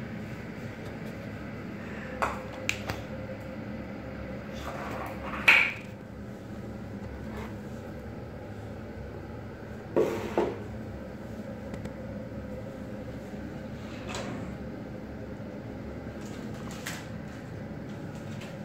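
A toddler handling kitchen pots and utensils, making scattered clanks and clinks: the loudest about five and a half seconds in, and a quick pair about ten seconds in, over a steady background hum.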